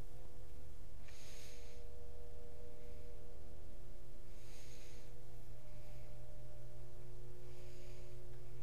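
Steady low room hum with a few faint steady tones above it, and three short hisses about three seconds apart.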